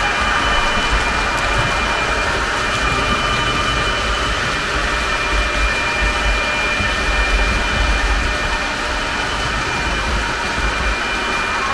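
H0-scale model freight train running on the layout's track: a steady rolling rumble with an even, high-pitched motor whine.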